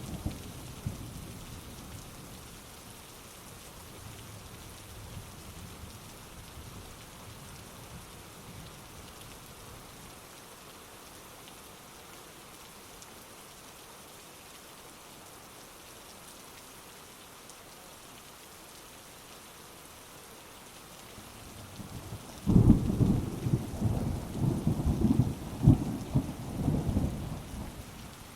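Steady heavy rain with rolling thunder: a low rumble dies away in the first few seconds, then about two-thirds of the way through a loud, crackling peal of thunder breaks and rolls on for several seconds.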